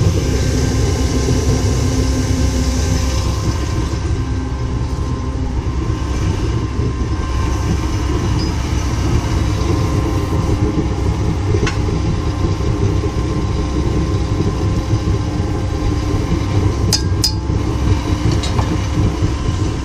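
Gas burners, the furnace and the torch heating the casting die, running with a steady low rushing noise. A couple of light metallic clicks come near the end.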